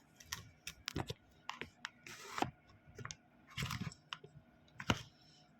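Irregular crunches, clicks and rustles of pet food, leafy vegetables, being handled and prepared, with a longer rustle about two seconds in.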